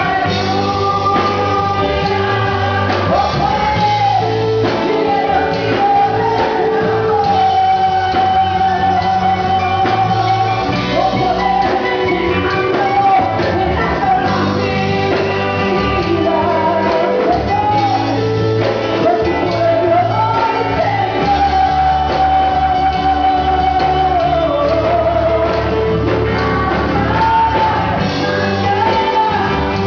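Live Spanish-language worship song: a lead singer's voice carries a melody over a band with a steady bass line.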